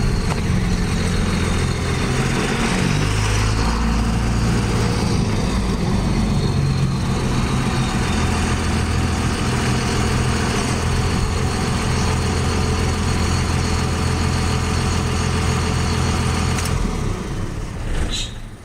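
Pickup truck engine running while the truck turns around, its pitch shifting over the first few seconds and then holding steady. The engine sound drops away near the end.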